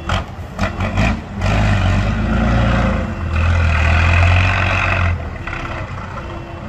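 Trial truck's diesel engine revving hard in three short bursts, then held at high revs for several seconds under load as the truck climbs a muddy slope, easing off about five seconds in.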